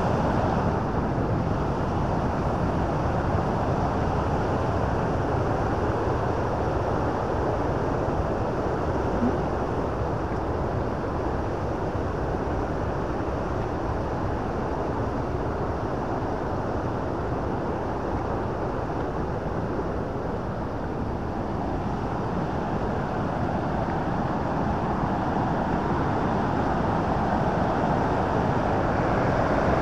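Steady rush of the Bow River's fast water running toward Bow Falls, an even unbroken noise.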